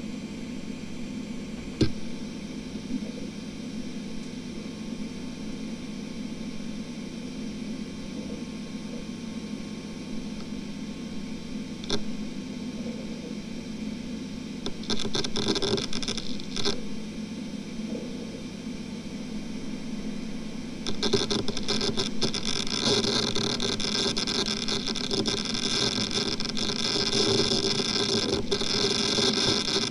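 Western Digital XE WD3001BKHG 2.5-inch 10,000 rpm enterprise hard drive spinning with a steady hum and hiss, with a single click about two seconds in and another about twelve seconds in. A short burst of rapid seek chatter comes about halfway through, then steady rapid seek chatter takes over for the last third as the operating system loads from the drive.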